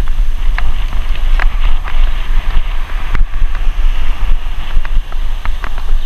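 Wind buffeting the microphone of a bicycle-mounted camera while riding: a loud, steady low rumble and hiss, with scattered short clicks and rattles.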